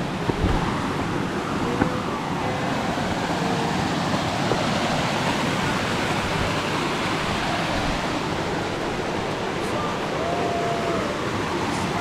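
Small waterfall cascading down a rock channel, a steady rush of water.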